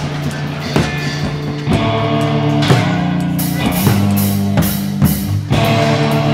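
Rock music with guitar chords over a drum kit, with a run of cymbal crashes in the middle.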